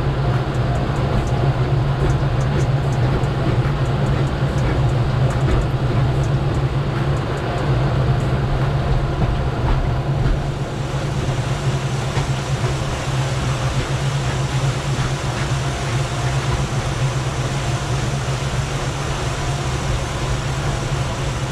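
Twin outboard motors running steadily as the boat moves ahead, a low drone, with wind and water rushing past; a high hiss grows louder about halfway through.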